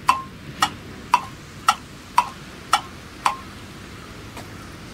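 Clock ticking, seven crisp ticks about two a second that stop about three seconds in, over a steady outdoor hiss.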